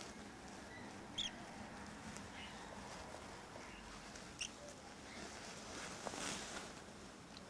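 Young cockatiel chicks giving a few short, high chirps, one about a second in and another past four seconds. A brief hiss follows near the end.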